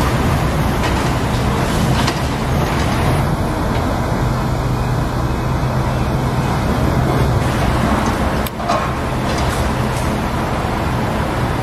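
Wheel loader's diesel engine running steadily as the machine drives over gravel, with a brief dropout about eight and a half seconds in.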